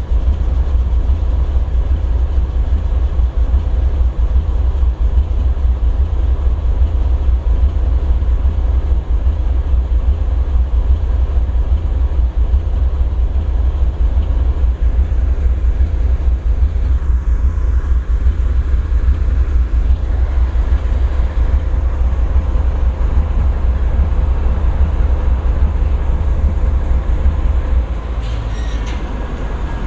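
Norfolk Southern GE ES40DC diesel-electric locomotive idling: a steady, heavy, deep engine rumble with a faint steady hum above it. Near the end the level eases slightly and there is a brief high click.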